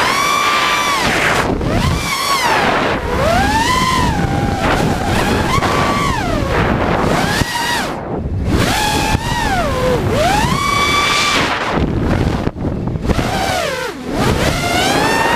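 Brushless motors of an ImpulseRC Reverb FPV quadcopter whining, their pitch repeatedly rising and falling every second or two as the throttle is worked through fast passes and climbs. Wind rushes over the onboard camera's microphone underneath.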